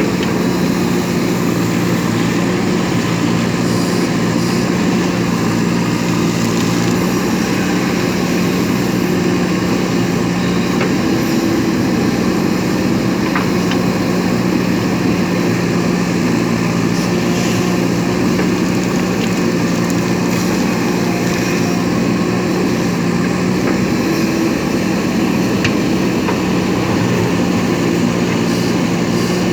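JCB 3DX backhoe loader's diesel engine running steadily under work, an even low drone.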